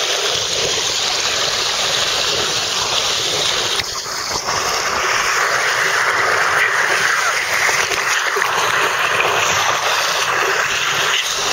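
Water rushing and splashing down a waterslide flume around a sliding rider, a steady loud rush heard right at the water. It dips briefly about four seconds in, then comes back a little louder.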